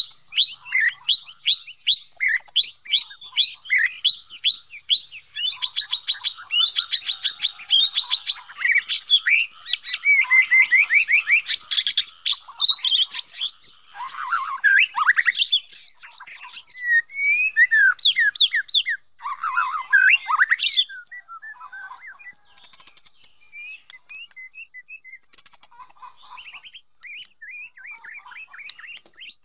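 White-rumped shama calling and singing: quick repeated chip notes, then dense, varied whistled phrases with fast trills. About two-thirds of the way through it drops abruptly to fainter, scattered notes.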